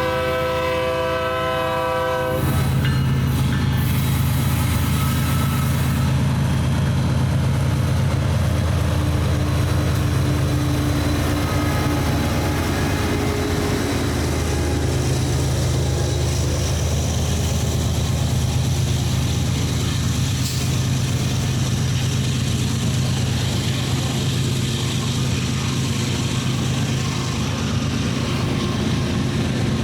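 A BNSF freight train's horn sounds and cuts off about two seconds in, then the diesel locomotives run past with a steady low hum, over the noise of the rolling train.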